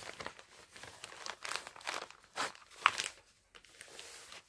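Clear plastic pouch of an embroidery kit crinkling and rustling in irregular crackles as it is handled and opened by hand.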